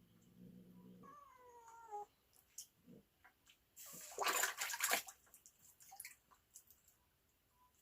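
Domestic cat meows once with a falling pitch. About four seconds in there is a loud splash of water, the catfish thrashing or the cat pawing at it.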